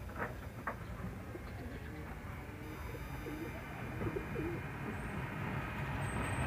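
Penned birds giving a handful of short, low, wavering calls from about a second and a half in, over a steady low background rumble, with two short sharp sounds near the start.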